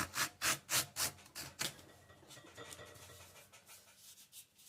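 Leather being pulled through a Wuta manual leather splitter's blade, a run of about six short rasping strokes in the first couple of seconds, then fainter rubbing.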